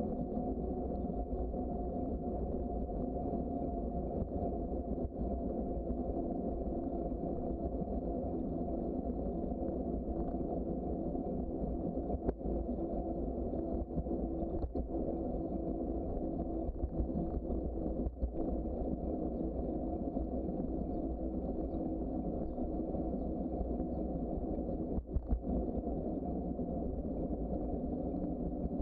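Steady low rumble of wind and tyre noise picked up by a camera riding along on a bicycle, with a few brief knocks from bumps in the trail.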